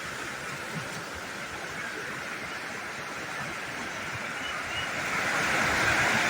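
Rushing river water, a steady rush that grows louder toward the end.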